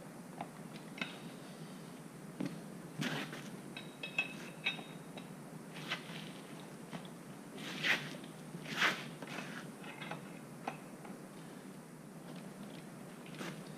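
Hand tools working on a motorcycle's front wheel: scattered clicks and light metallic clinks, with two louder scrapes about eight and nine seconds in.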